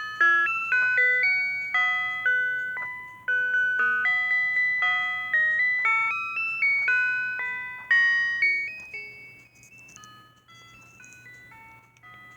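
Electronic chime melody from a homemade clock's hourly music module, played through its small built-in speaker: a simple tune of bell-like notes, each struck sharply and dying away. The tune plays strongly for about eight seconds, then thins to a few quieter notes that fade out.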